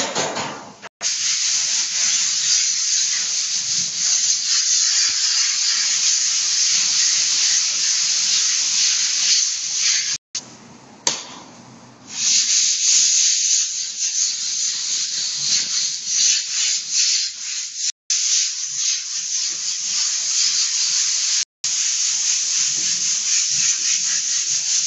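Continuous rough, scratchy hissing noise, cut off abruptly for an instant several times, with a quieter patch near the middle.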